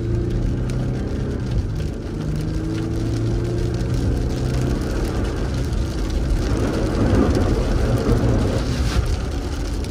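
A Jeep driving on a rain-soaked road, heard from inside the cab: a steady engine hum with tyre and road noise, its pitch drifting slightly. A louder rush of noise comes about seven seconds in.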